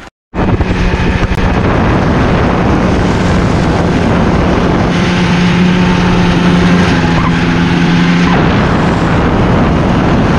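Snowmobile engine running at speed, a steady drone, with wind rushing over the microphone and track noise. The engine drone is strongest for a few seconds past the middle, then eases.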